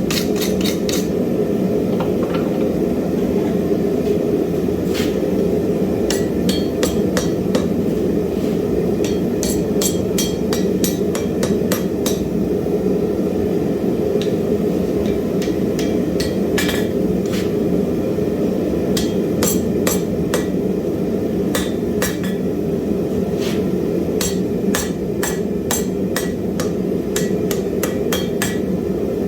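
Hand hammer striking hot wrought iron on an anvil: sharp ringing blows in irregular runs, with a pause of a few seconds midway, over a steady low roar.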